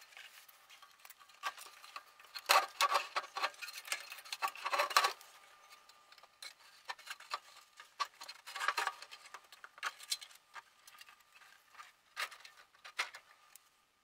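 A furnace's sheet-metal squirrel-cage blower housing being slid back into its cabinet, with irregular metal clinks and scrapes. The loudest burst comes a few seconds in, and there are shorter ones in the middle and near the end.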